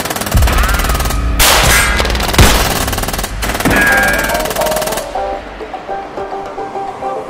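Rapid automatic gunfire in three long bursts with short breaks, stopping about five seconds in, over background music that carries on.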